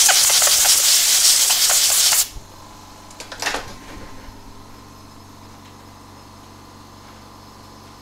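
Pressurised spray hissing in one loud blast lasting about two seconds, then cutting off sharply, during cleaning of the reballing work. After it, a steady low hum of bench equipment, with a short scrape about three and a half seconds in.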